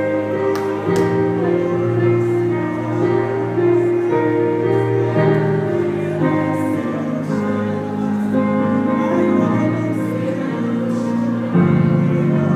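Slow gospel worship music: sustained keyboard chords that change every second or two.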